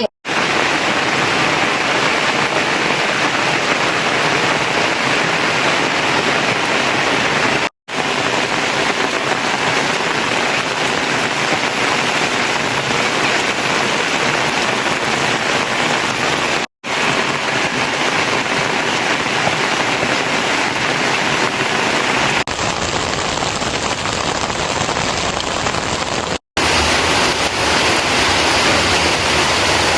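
Steady heavy rain falling, an even hiss and patter, cut off for an instant three times.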